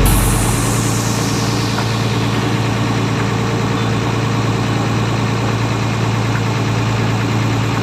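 Ferry boat engine running steadily with an even low hum.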